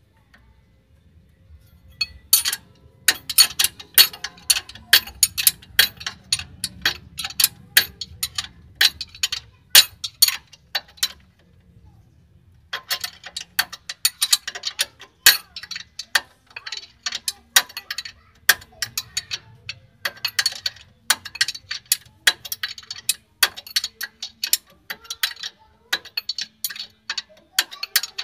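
Ratchet wrench clicking in fast runs as a nut on a lower suspension bolt is spun loose. The clicking stops for about a second and a half near the middle, then picks up again.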